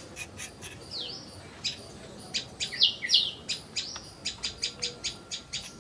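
Small birds chirping: quick high chirps with a few falling notes, the loudest a little before the middle, then a fast run of chirps near the end.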